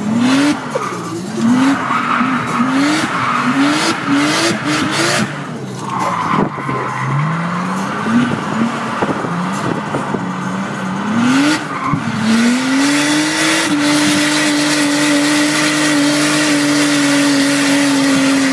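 Toyota Chaser JZX100 drift car's engine heard from inside the cabin while drifting: the revs climb and fall again and again, about six times in the first five seconds, then rise and hold steady at high revs from about twelve seconds in. Tyres squeal and skid underneath.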